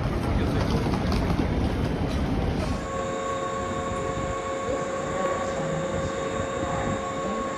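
Running noise of a moving train, an even rumble that changes abruptly a little under three seconds in to a quieter, steadier sound with several steady high hums.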